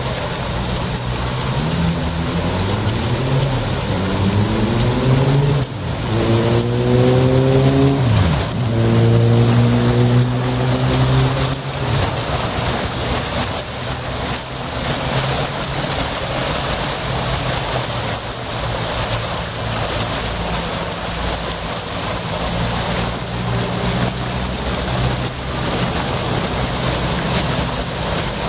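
Fountain water splashing steadily. From about a second in until about twelve seconds, a vehicle engine accelerates through several gears, its pitch climbing and dropping back at each shift.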